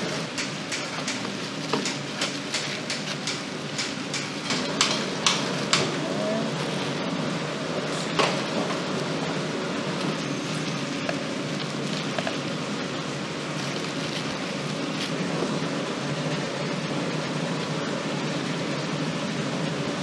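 Clicks and taps of gloved hands putting octopus, garlic and chilies into clear plastic jars, coming thick and fast for the first six seconds, with one sharper click about eight seconds in, over a steady kitchen background noise.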